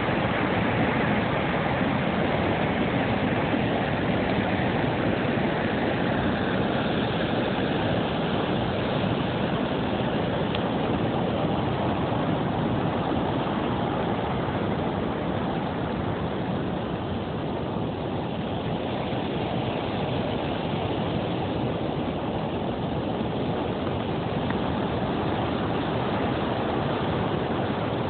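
Water rushing through an open dam spillway gate and churning into white water below: a steady, unbroken rushing noise.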